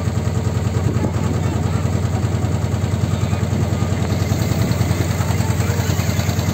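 Tour boat's engine running at low speed, a steady, even low chugging.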